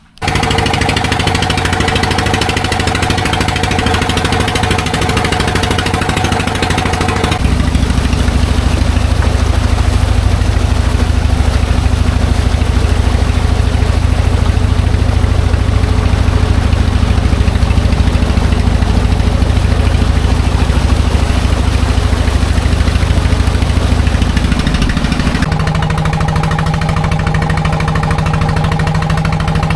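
Fishing boat's engine running steadily with a heavy low drone; its tone changes abruptly about seven seconds in and again near the end.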